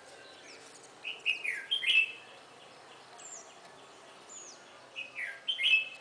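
Red-whiskered bulbul song: two short, bright warbled phrases, one about a second in and another near the end. Faint, thin, high whistles fall in between.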